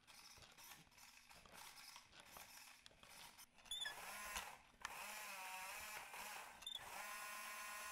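Plastic clicks and rattles from handling the 3D-printed RC car and its controller's toggle switch. Then the car's small DC gear motors whine, their pitch dipping and rising again as the speed changes, with two short high chirps.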